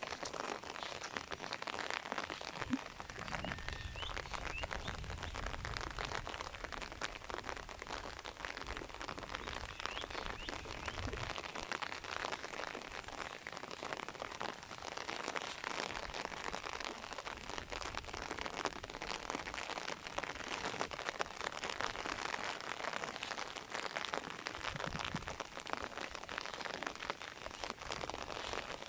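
Steady rain falling, an even hiss made of many small drop ticks. A low rumble sits underneath for several seconds between about two and eleven seconds in.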